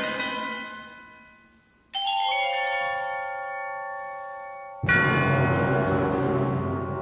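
School wind band playing: a held chord fades away, then about two seconds in a struck chord on bell-like mallet percussion rings out and slowly dies. Nearly five seconds in, the full band comes in loudly on a chord with heavy bass.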